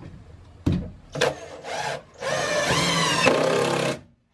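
Power drill driving a screw into a wooden box: a knock, two short trigger bursts, then a longer run with the motor pitch climbing, which cuts off suddenly near the end.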